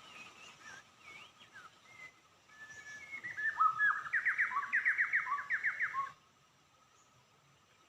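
White-rumped shama (murai batu) singing: a few scattered whistled notes, then about three seconds in a loud, fast run of rising whistles, about four or five a second, that cuts off suddenly about six seconds in.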